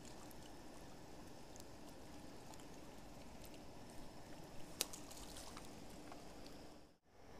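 Faint steady outdoor background noise with a few light clicks and taps about four to five seconds in; it cuts out abruptly for a moment near the end.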